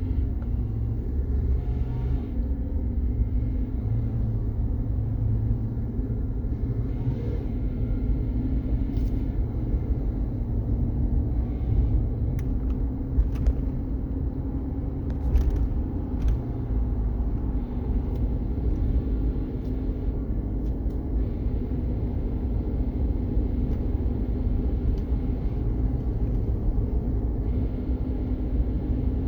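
2016 Chevrolet Silverado pickup on the move: a continuous low rumble with a steady whine from the underside of the truck.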